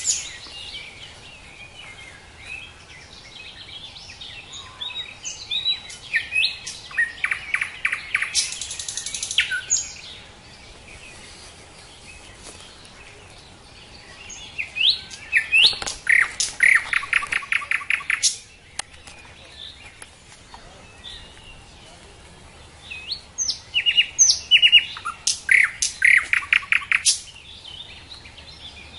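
Nightingale singing: three song phrases, each built up to fast trills of rapidly repeated notes, with pauses of several seconds between them.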